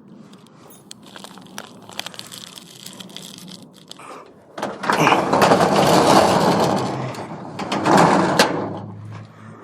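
Scattered clicks and rattles, then a loud, rough rustling and rubbing noise for about four seconds that comes in two surges.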